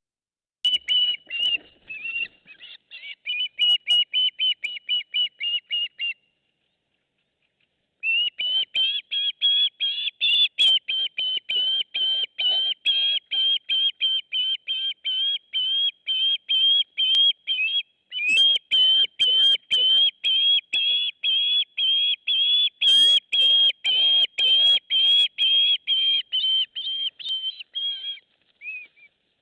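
A bird calling in long runs of short, high whistled notes, about four or five a second, with a break of about two seconds some six seconds in.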